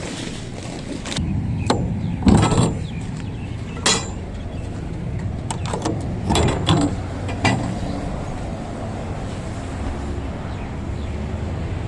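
A van's engine running steadily, with a series of sharp knocks and clunks over the first eight seconds or so.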